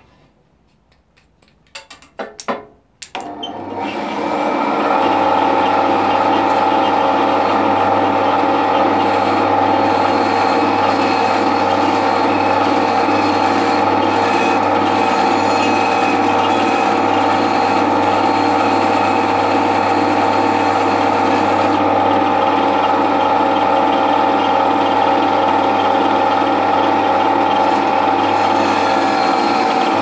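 A few knocks, then about three seconds in a band saw starts up. Its motor comes up to speed within a second and runs steadily with a constant hum and whine while a wooden block is fed against the blade.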